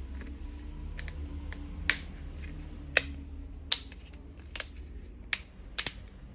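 Small sharp clicks and taps of tools and plastic parts being handled while working on a smartphone, about eight at irregular intervals, over a steady low hum.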